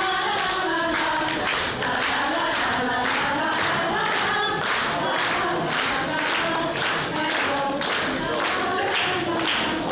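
A group of voices singing together without instruments, with hand claps in a steady beat about twice a second.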